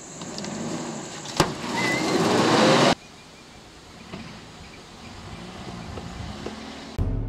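Motor vehicle sounds: a loud rushing noise with a rising engine whine that cuts off abruptly about three seconds in. Then a stopped bus's engine idling quietly.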